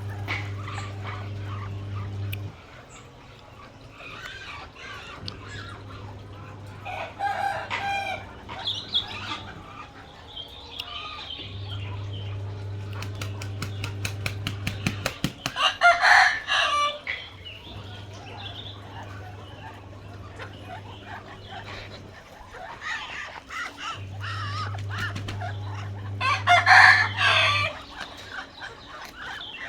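A rooster crowing three times, spaced several seconds apart, with softer clucking from chickens in between. A low steady hum starts and stops several times underneath.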